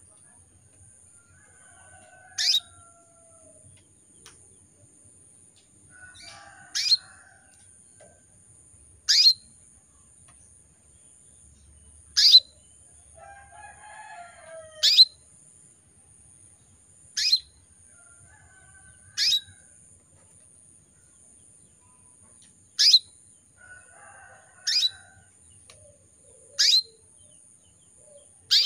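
Female canary giving short, sharp call notes, each one a quick downward sweep, repeated about every two seconds. This is the call a hen canary in breeding condition uses to draw a male.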